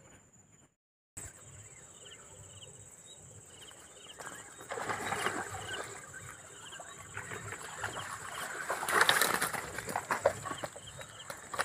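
Rustling of leaves and stems and steps on damp ground as someone pushes through dense undergrowth, loudest about nine seconds in. A steady high-pitched whine and faint repeated chirping run underneath.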